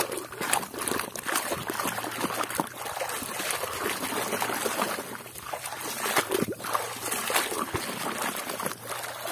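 Muddy water sloshing and splashing steadily as a plastic toy is swished and scrubbed by hand in shallow water, with many small irregular splashes.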